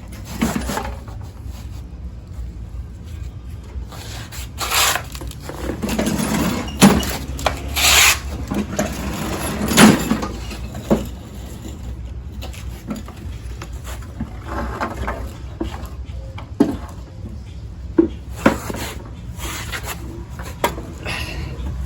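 Hand tools working on a steel lawn mower deck to unbolt the engine: irregular clanks, knocks and scraping, the sharpest in a cluster around the middle, over a steady low rumble.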